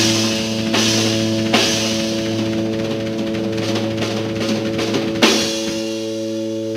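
Live rock band playing: a held, ringing electric guitar chord over bass and a drum kit, with several cymbal crashes.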